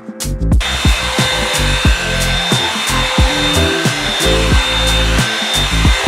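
Revlon One Step hair dryer brush switching on about half a second in and then running steadily, a hiss of blown air with a faint steady whine, over background music with a steady beat.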